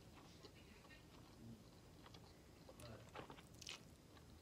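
Faint eating sounds: spaghetti slurped into the mouth and chewed. A cluster of soft wet mouth clicks comes about three seconds in.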